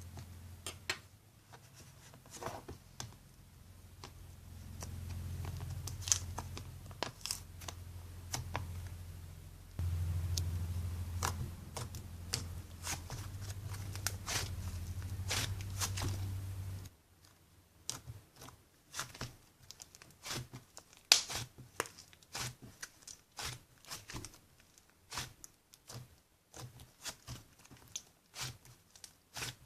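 Slime being squished and stretched by hand, a rapid run of sticky clicks and pops. A low steady hum sits under it for the first half and cuts off suddenly partway through.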